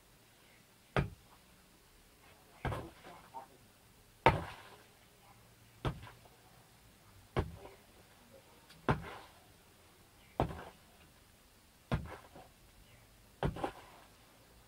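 A long-handled digging tool chopping into soil, nine strikes about one and a half seconds apart, each followed by a brief patter of loosened earth.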